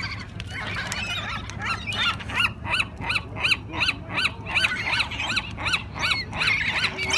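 A flock of birds calling while being fed. The calls are jumbled at first, then from about two and a half seconds in they come as a steady series of repeated calls, about three a second.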